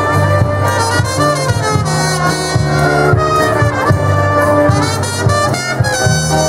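Municipal wind band playing a tune live, saxophones, trumpets and a horn holding sustained notes over a regular beat.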